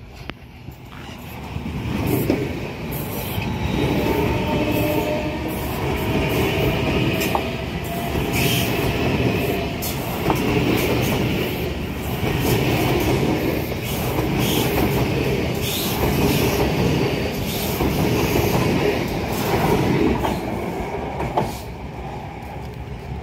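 Electric commuter train passing close by: wheels rumbling and clacking over the rail joints with some squeal of wheels on the rails. It swells about two seconds in, holds loud as the carriages go past, and falls away near the end as the train moves off.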